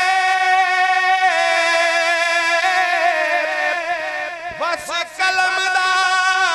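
A man singing a Punjabi devotional kalam into a microphone, drawing out long wavering notes without clear words. The voice drops away briefly about four and a half seconds in, then takes up a held note again.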